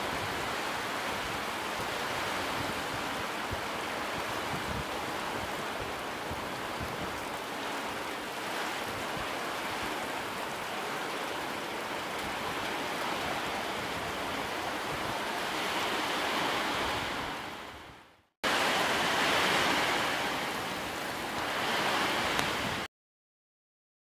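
Storm wind and heavy rain, a steady rushing noise. It fades out about eighteen seconds in, comes back briefly, then cuts off near the end.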